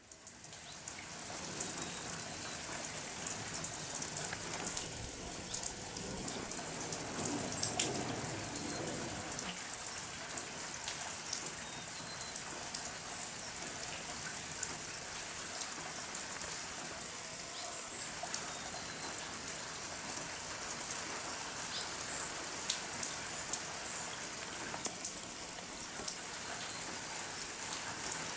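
Steady rain falling, with many small drop hits ticking through the hiss; it fades in over the first two seconds and then holds even.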